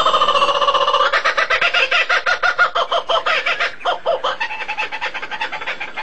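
Fowl calling in a rapid string of clucking notes, loudest through the first four seconds or so and dropping lower after.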